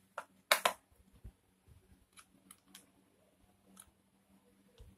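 Hard plastic clicks and knocks from a toy tricycle wheel being fitted on its metal axle and an orange plastic hub cap pressed into it. A sharp pair of clicks about half a second in is the loudest, followed by a few lighter scattered ticks.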